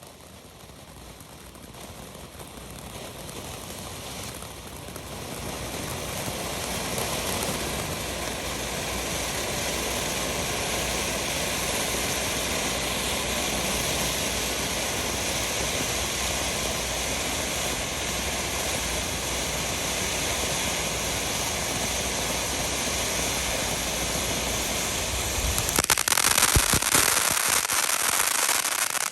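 500 g Hollering Hippos firework fountain spraying with a steady rushing hiss that builds over the first several seconds. Near the end it gets louder, with a burst of crackling, then cuts off suddenly.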